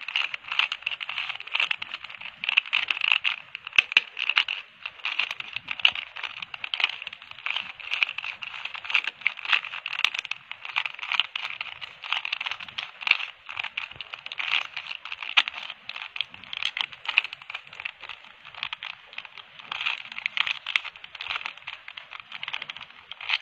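A plastic 3x3 Rubik's Cube being turned by hand: a dense, continuous run of quick plastic clicks and clacks as its layers are rotated.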